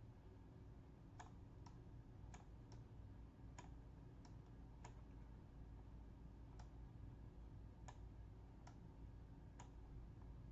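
Computer mouse clicking about a dozen times at irregular intervals, faint over a steady low hum.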